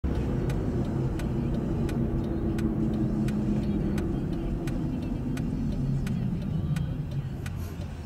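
Car engine and road noise heard inside the cabin, easing off as the car slows for a turn, with the turn-signal indicator ticking steadily about three times every two seconds.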